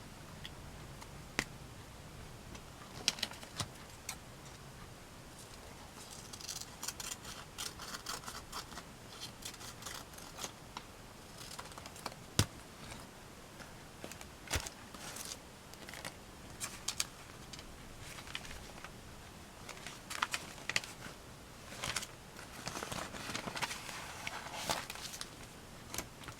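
Scissors snipping and magazine paper rustling as scraps are cut and handled, with scattered sharp clicks and taps.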